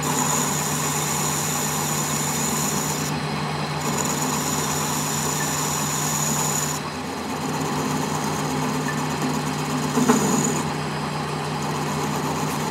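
Metal lathe running, its carbide tool bit cutting the end of a spinning metal shaft: a steady machine hum with a high cutting hiss that cuts in and out several times. There is a short, louder clatter about ten seconds in.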